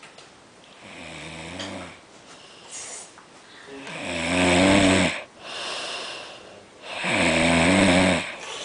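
A man snoring loudly in sleep: three long, rattling snores about three seconds apart, the first fainter and the last two loud.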